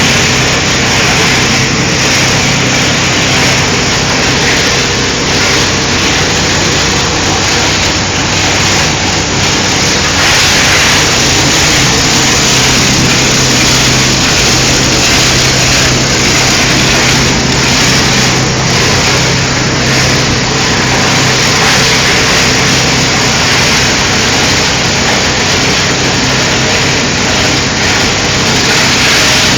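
Medical waste shredder running: a loud, steady mechanical noise over a continuous low motor hum.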